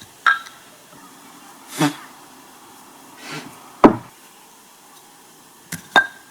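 A series of sharp knocks, about five, the loudest about four seconds in and two in quick succession near the end: thrown wooden sticks striking wooden pieces or the ground in a throwing game.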